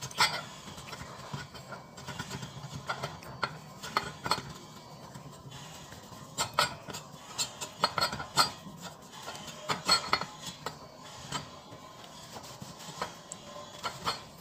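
Irregular metallic clinks and light knocks as the steel clutch bell of an automatic scooter's CVT clutch is handled and turned against the clutch and pulley assembly.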